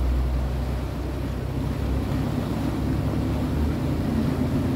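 Passenger ferry's engine running steadily, a low drone under the rush of water and wind.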